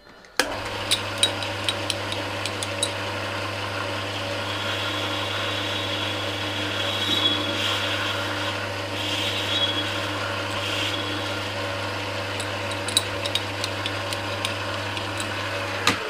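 Sieg C6 metal lathe starting abruptly about half a second in and running steadily with a hum, its cutting tool taking a pass along an aluminium bar, with scattered sharp ticks. The lathe switches off at the very end.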